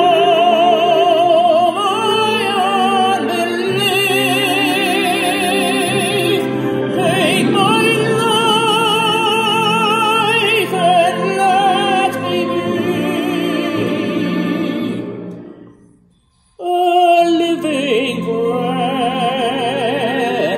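A man singing a slow, prayerful song in a held, operatic style with strong vibrato. The sound fades away about three-quarters of the way through, drops out for under a second, then comes back in suddenly.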